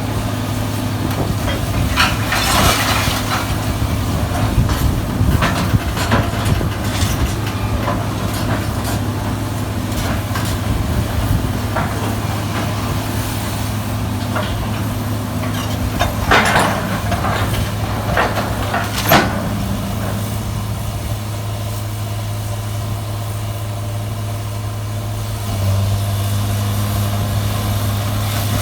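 Sierra 656SL metal shear baler running, its power unit droning at a steady pitch, with short, loud, harsh sounds from the shear and baler working scrap about two seconds in and again around sixteen and nineteen seconds.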